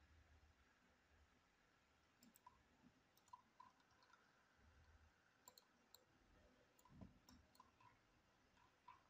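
Faint, irregular computer mouse clicks over near-silent room tone.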